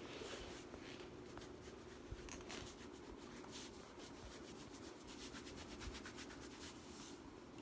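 Hands rubbing and working over a person's back as it is stretched and loosened before a crack: a faint, dry rustling in many short, irregular strokes.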